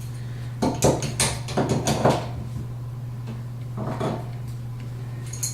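Metallic clinks and clicks of a wrench working a water-supply fitting under a sink, in a cluster about a second in and again near four seconds, over a steady low hum.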